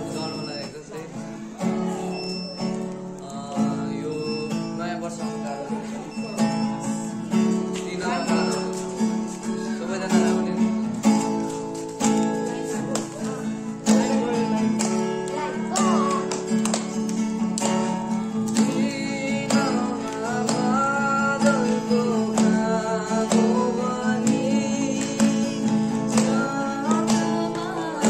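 A capoed acoustic guitar strummed in a steady rhythm of chords, with a voice singing along over the second half.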